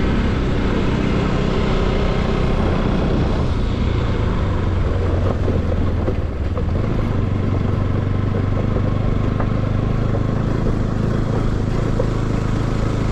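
Bajaj Pulsar NS200's single-cylinder engine running under road and wind noise; its note drops over the first few seconds as the throttle eases, then holds steady and low.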